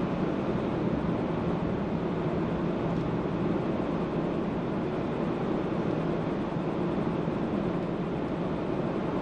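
Car driving at a steady pace: continuous road and engine noise with no distinct events.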